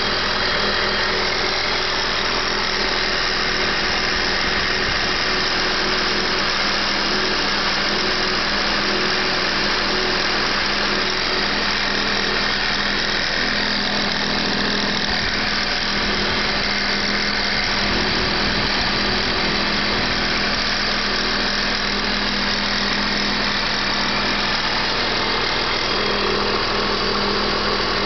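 BMW E39 engine idling steadily after a cold start, heard at the alternator and belt drive, with a knocking noise that the owner traces to the hydraulic belt tensioner.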